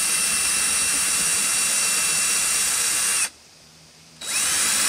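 Cordless drill with a 1/2-inch bit running at full speed, boring a hole through a van's roof access port cover. The motor stops a little over three seconds in, then spins up again with a rising whine near the end.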